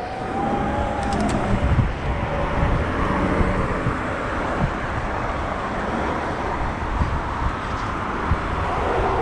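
Wind rushing over the microphone of a moving eBike, mixed with road and traffic noise from passing cars.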